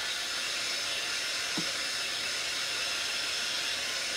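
Handheld craft heat gun running with a steady blowing hiss, drying freshly applied chalk paint on a wooden tray.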